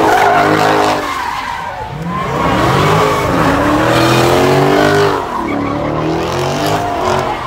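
Car engine revving hard with tires squealing and skidding as the car is spun in a burnout. The revs dip about a second in, climb again, and fall off about five seconds in.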